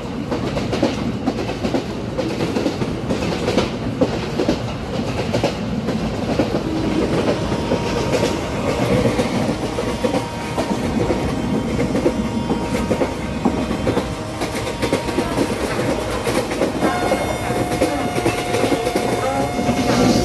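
Indian Railways ICF passenger coach running on the track, heard from the open doorway: a steady rumble with the clickety-clack of wheels over rail joints. A steady high tone comes in near the end.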